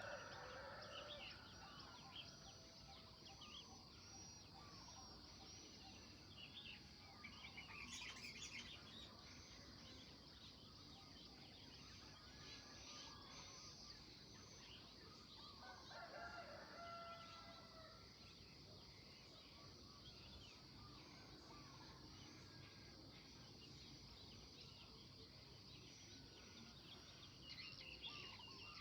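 Faint dawn birdsong: small birds chirping and twittering over a steady high hiss. A rooster crows at the start and again about halfway through.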